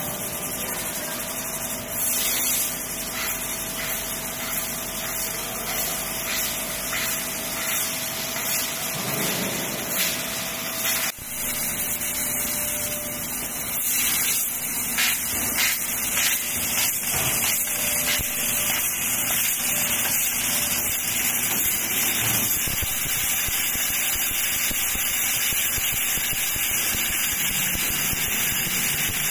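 Laser cutting machine cutting steel sheet: a steady hiss of assist gas blowing through the cutting head, with short spurts as it starts and stops between cuts.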